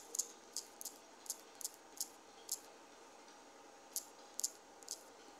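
Typing on a smartphone's on-screen keyboard: about ten short, light, high clicks at an uneven pace, with a pause of about a second and a half midway.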